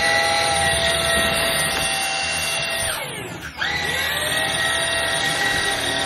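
Xiaomi Jimmy JV51 cordless stick vacuum running with a steady high whine as it sucks up spilled salt from a hard wooden floor. About three seconds in, the motor's whine falls away sharply and then winds straight back up to full speed within about half a second.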